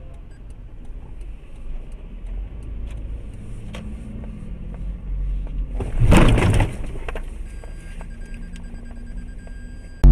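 Dashcam audio of a car driving: low engine and road rumble inside the cabin, with a loud, sudden noise about six seconds in that lasts under a second.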